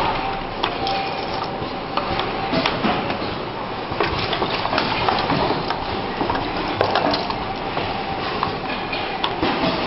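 Four-station automatic relay soldering machine running: a steady mechanical hum and hiss with frequent irregular clicks and clacks.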